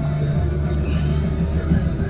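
Music playing, with a steady low hum underneath.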